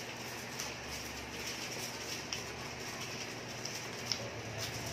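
Eating by hand off aluminium foil: fingers picking rice and pork make faint crinkles and small scattered clicks, over a steady low hum. There is one sharper click about four seconds in.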